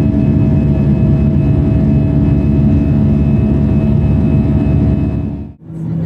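Airbus A320's turbofan engines heard from the cabin during the climb after takeoff: a steady rumble with a few steady whining fan tones on top, fading out quickly about five and a half seconds in.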